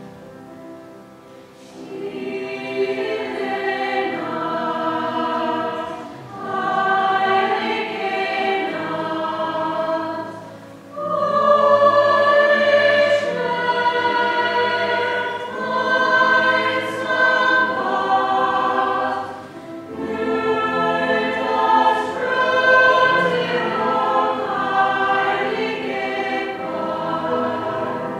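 Mixed choir singing a carol. The voices swell in about two seconds in and sing long phrases with brief breaks between them.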